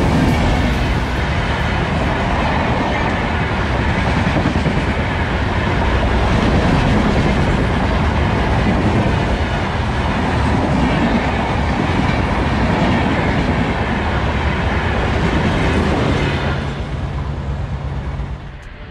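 A passing train, a loud steady rumble and rattle of wheels on the rails that fades away over the last couple of seconds.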